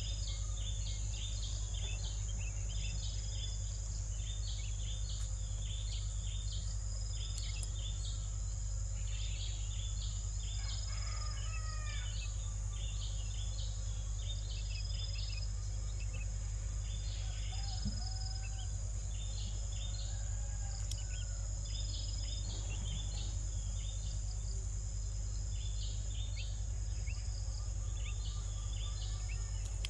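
Outdoor insect chorus: a steady high drone with dense, rapidly repeated high chirps, under a constant low hum. A few bird calls come through, a cluster about ten seconds in and a couple more around eighteen to twenty-one seconds.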